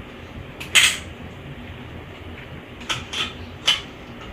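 Toy cash register coins clinking as they are handled and put into the drawer: one loud clink under a second in, then three lighter clinks near the end.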